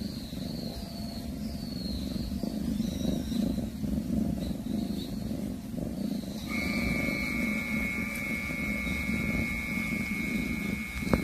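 Cat crouched over a mouse it has caught, giving a low, continuous growling rumble as it guards its prey. Faint high chirps come early, a steady high tone joins partway through, and there is a sharp click near the end.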